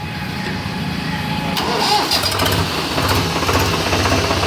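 Swaraj 735 FE tractor's three-cylinder diesel engine being started. It catches about a second and a half in and settles into a steady idle.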